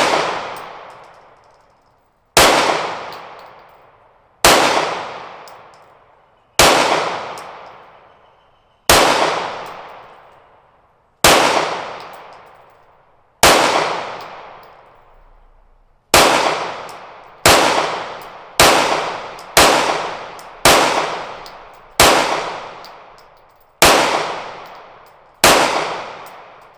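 About fifteen 9mm semi-automatic pistol shots fired one at a time, each a sharp crack followed by a long fading echo. The shots come about two seconds apart at first, then quicken to a little over a second apart from about halfway through as the shooter picks up speed.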